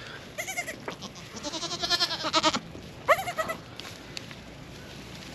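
Goats bleating: three wavering calls, a short one, then a long loud quavering bleat, then another short one.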